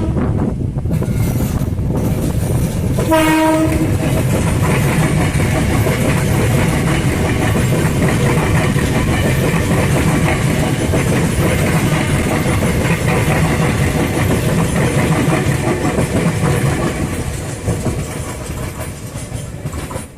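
Electric commuter train (KRL) gives a short horn blast about three seconds in, then passes close by with a steady rumble and wheel clatter on the rails that fades near the end.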